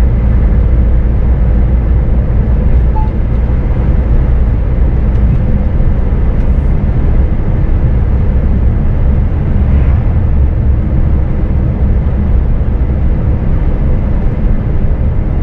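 Scania S500 truck cruising steadily on an asphalt road, heard from the cab: a steady low engine drone with tyre and road noise.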